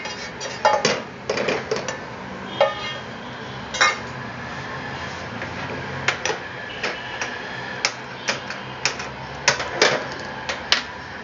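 A cooking utensil scraping and knocking against a pan in irregular clinks while roasted wheat flour is mixed into ghee residue (mawa) for ladoos.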